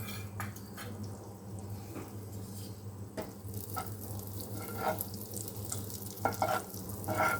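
Butter melting in a hot pan with a soft sizzle that builds from about halfway through, stirred with a spoon that scrapes the pan now and then. A steady low hum runs underneath.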